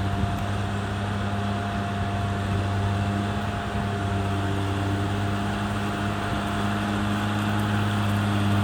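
Caterpillar D6R XL bulldozer's diesel engine running steadily under a constant low drone, with a steady higher whine above it.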